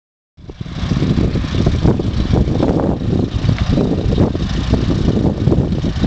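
1939 Oliver 80 tractor's engine running as the tractor drives along, with wind buffeting the microphone in irregular gusts. The sound starts suddenly about half a second in.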